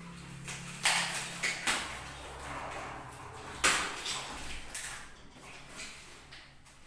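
Cardboard packaging with thick glue and tape being pulled and torn open, in several short rasping bursts.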